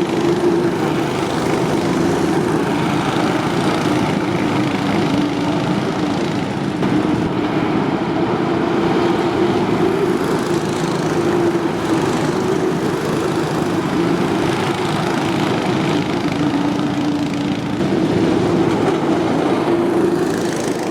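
Small single-cylinder cyclekart engine running steadily, its pitch rising and dipping a little as the throttle changes.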